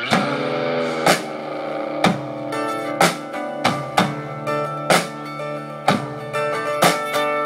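Live band playing a rock song with acoustic guitar, drum kit and brass. The full band comes in together with a loud hit at the start, then drives on with a strong beat about once a second under sustained chords.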